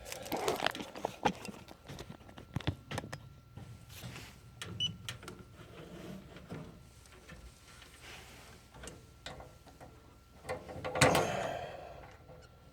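Scattered clicks, knocks and rattles of hand work on a furnace, with one louder clatter about eleven seconds in.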